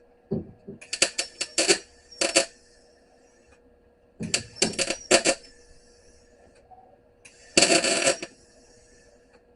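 Harbor Freight MIG welder laying short tack and stitch welds on thin sheet-metal floor pan: several brief bursts of arc crackle, each under a second, with pauses between. A faint steady hum runs underneath.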